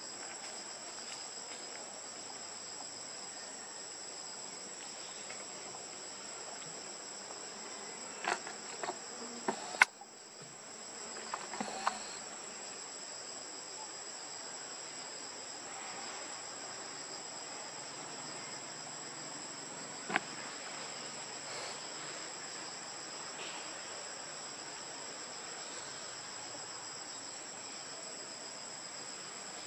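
Steady high-pitched insect chorus droning without a break, with a handful of sharp clicks about a third of the way in and one more about two-thirds in.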